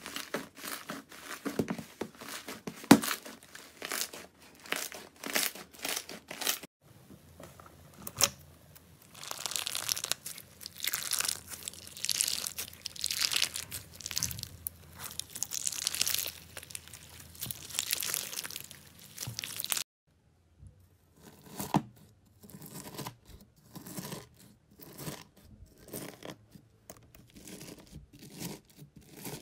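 Hands working slime in three clips. First a soft green fluffy slime is kneaded, with many quick sticky pops. About seven seconds in, a pink slime packed with clear beads is squeezed, crackling and crunching steadily. After a short break about twenty seconds in, a knife cuts through a gold-leaf-coated slime with scattered crackles and clicks.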